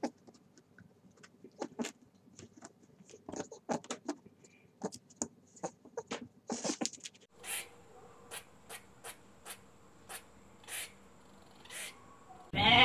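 A small animal's short, scattered chirps and clicks, quiet and irregular, with a change in background about seven seconds in.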